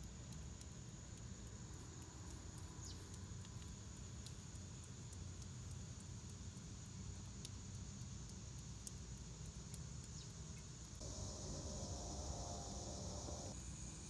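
Faint outdoor ambience with a steady low rumble. About eleven seconds in, insects start a steady high chirring that lasts a couple of seconds and then stops.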